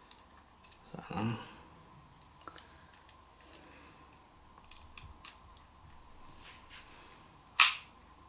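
Scattered light clicks and handling noises as a DJI Osmo Pocket 3 gimbal camera and its SD card are handled, with a small cluster of clicks mid-way. One louder, sharp, short noise comes near the end.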